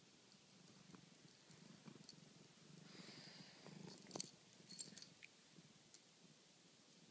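Domestic cat purring faintly right at the microphone. A brush of fur and a few sharp clicks about four and five seconds in come from the cat's head rubbing against the phone.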